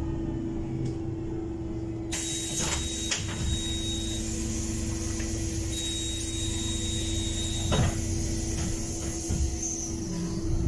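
Interior of a Heuliez GX337 CNG city bus, mostly stationary, with a steady hum and low rumble. About two seconds in a hiss starts, a high beep sounds twice for about two seconds each, and there is a knock near eight seconds.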